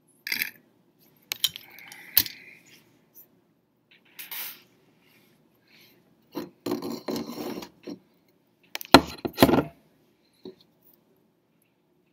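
Small hard objects handled on a desk: a string of clinks, knocks and rattles, with a longer clatter about six to eight seconds in and the loudest knocks about nine seconds in.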